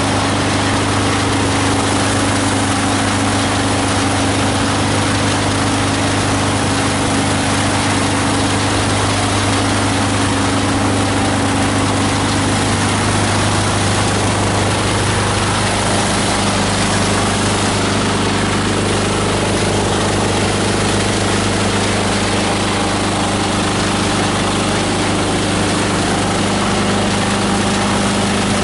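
18 HP diesel engine driving a multi-blade plastic grinder, running steadily. Its note shifts a little lower about halfway through.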